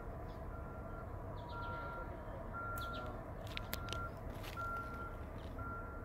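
A vehicle reversing alarm beeping in the distance, a steady single-pitch beep about once a second, over a low steady rumble.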